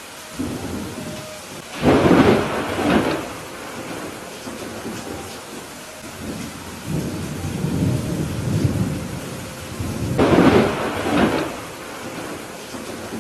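Thunderstorm with steady rain falling. Two loud thunderclaps come about 2 and 10 seconds in, with a lower rolling rumble of thunder between them.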